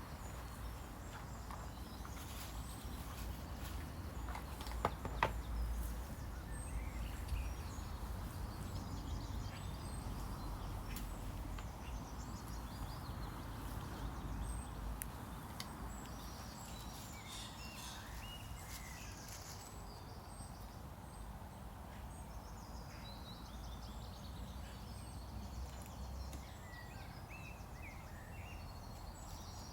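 Outdoor nature ambience: birds chirping in short scattered calls over a steady low rumble, with a couple of sharp clicks about five seconds in.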